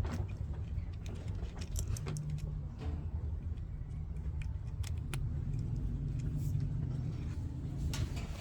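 Scattered light clicks and rattles of hands handling a washing machine drain pump and its power cord, over a steady low hum.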